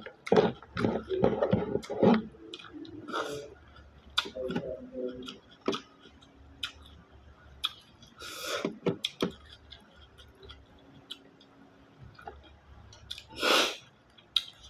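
Eating bisukol, freshwater snails in coconut milk, by hand: shells clicking as they are picked up, chewing, and wet sucking slurps as the meat is drawn out of the shells, the two loudest about a third of the way in and near the end.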